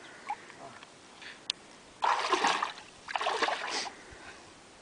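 Bare feet and legs wading through shallow lake water, two splashy steps about two and three seconds in.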